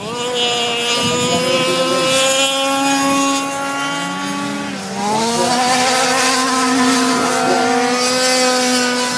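Small two-stroke gas engines of 1/5-scale radio-controlled 4x4 cars running at high revs, a steady high-pitched buzz. The pitch dips and climbs again about five seconds in.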